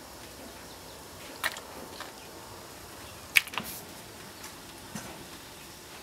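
A pot of soup simmering over a fire, a steady low hiss broken by a few sharp pops and crackles, the loudest about halfway through.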